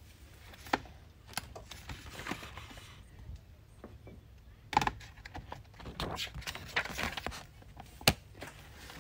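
Paper pages of a paperback book being turned by hand: rustling and handling noise with a few sharp taps.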